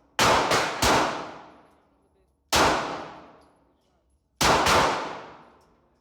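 Six pistol gunshots, each ringing out with a long echo: three in quick succession, one alone about two and a half seconds in, then two close together near the end.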